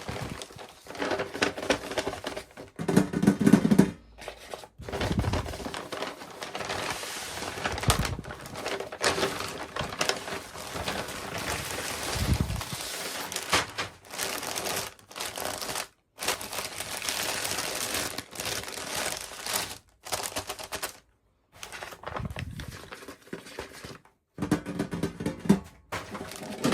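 Close-up crinkling and clicking of plastic packaging and small plastic toy pieces being handled during an unboxing, with several abrupt cuts.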